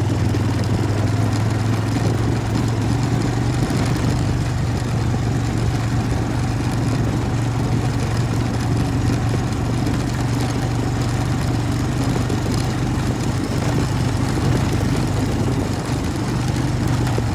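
Small off-road vehicle's engine running steadily at an even speed, a constant low hum with no revving.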